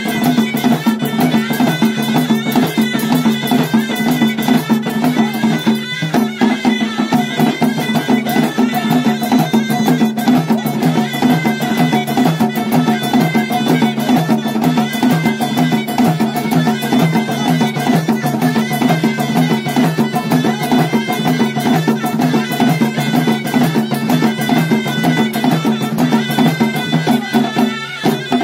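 Moroccan Hit folk music played live: large drums and hand percussion beating a fast, driving rhythm under a steady held melody line.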